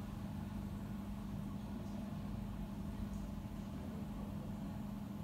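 Steady mechanical hum with one low droning pitch over a constant rumble, the running noise of kitchen machinery.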